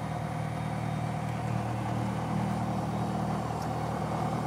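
Piper Warrior's four-cylinder Lycoming piston engine and propeller droning steadily at take-off power, heard from inside the cockpit.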